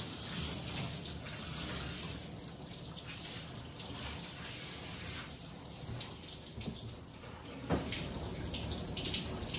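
Running water as a dog is wetted down in a bathing tub, the flow splashing unevenly. A single sharp knock about three-quarters of the way through.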